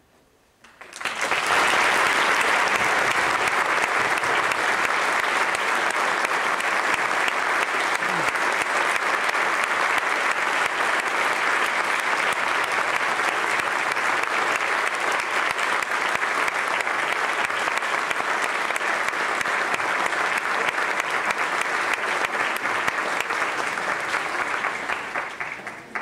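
Concert audience applauding. Applause breaks out about a second in, holds steady and dense, and dies away near the end.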